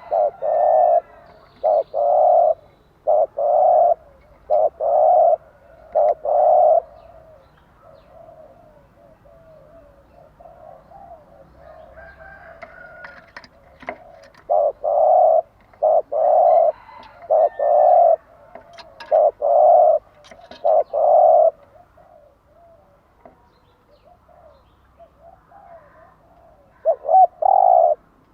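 Spotted dove cooing: a run of loud, low coo notes through the first seven seconds and another from about fifteen to twenty-one seconds in, with quieter murmuring between, and a short pair of coos near the end.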